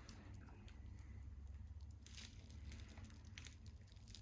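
Near silence, with a few faint rustles and clicks of packaging being handled as the gear knob is unwrapped.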